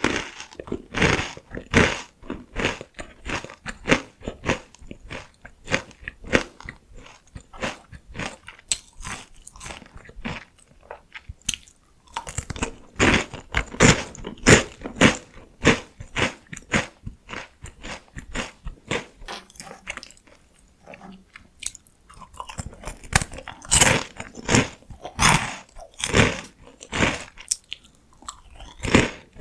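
Close-miked crunching and chewing of PoStick salty potato sticks: rapid dry crunches, in busier spells with brief lulls between bites.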